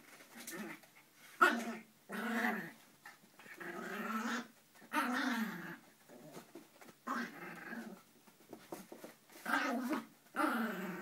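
Border Terrier puppy play-growling in a string of short growls, roughly one every second, while worrying a toy.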